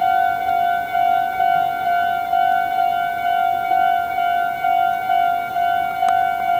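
Japanese railway level-crossing warning bell ringing steadily, a single electronic tone repeating about twice a second.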